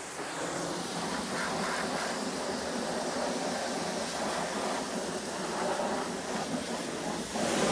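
Car wash high-pressure wand spraying a steady jet of water onto a car's body: an even hiss of spray with no break.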